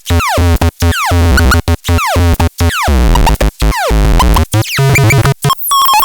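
Electronic synthesizer music: a heavy, chopped bass pulse under tones that sweep downward in pitch, cut by short gaps into a stuttering rhythm. About five and a half seconds in, the bass drops out and a choppy, higher repeated tone takes over.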